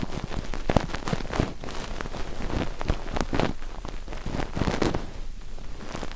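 ASMR ear cleaning: a tool scratching and rubbing at close range on the microphone's ear, giving dense, irregular crackles and scrapes, over a soft rain bed.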